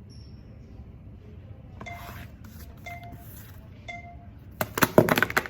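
Three short beeps about a second apart, iMovie's voiceover recording countdown, then a clatter of small objects dropped from up high onto a surface, several quick impacts near the end that are the loudest part. The drop is a foley take for things falling over.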